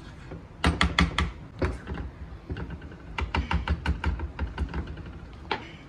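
Plastic slotted spatula stirring thick schezwan sauce in a non-stick pan: a quick, irregular run of clicks and taps, starting about a second in and thinning out near the end.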